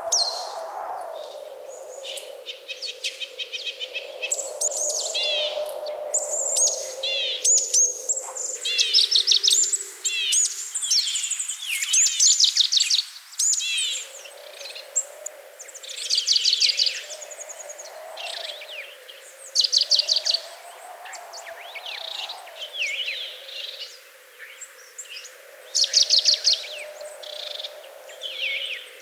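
Wild songbirds singing, with many quick high trills and chirping phrases one after another. A lower steady hum sits underneath and drops out for a few seconds in the middle.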